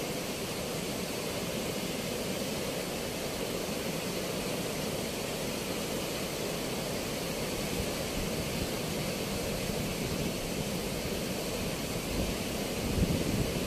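Water rushing and churning as it pours out beneath the open sluice gates of a river barrage, a steady, even noise. A few low bumps come in near the end.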